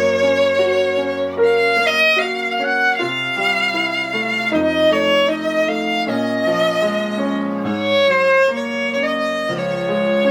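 Violin and piano duet: the violin plays a slow melody of held notes with vibrato over a piano accompaniment of sustained bass notes and chords.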